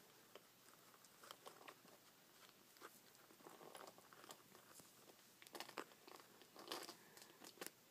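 Faint soft clicks and short rustles from a fluffy grey kitten pawing at and play-biting a person's denim-covered leg. The rustles come thicker and louder in the second half.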